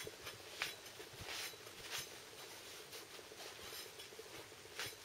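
Faint handling noise: a jacket sleeve rustling close by, with a few light, scattered clicks and knocks as parts are lifted out of a plastic tub of rust-remover solution.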